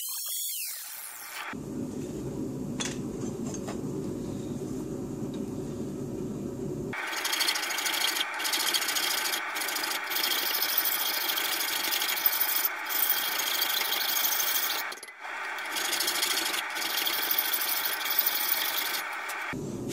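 An angle grinder whining as it spins down at the start. Then a hand file rasps back and forth on a metal trigger plate clamped in a vise. The filing is a duller, lower rubbing at first, and from about a third of the way in a harsh, bright scratching with short pauses between strokes.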